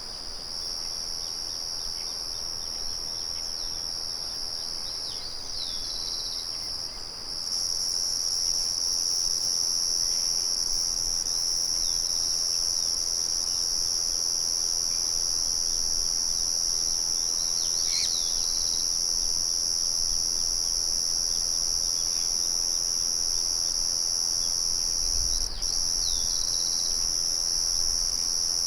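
Crickets trilling in a steady, high-pitched continuous chorus that steps up louder about seven seconds in, with a few brief bird chirps over it.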